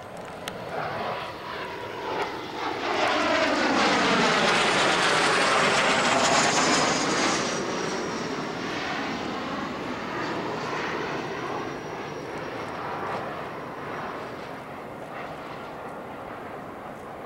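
Kawasaki T-4 jet trainers flying a low pass: the jet noise swells to its loudest a few seconds in with a sweeping whoosh, then a high whine falls in pitch as the jets move away and the sound fades slowly.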